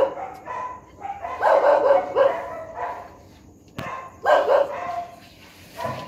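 Dogs barking in short bursts, a few barks at a time with pauses of a second or so between.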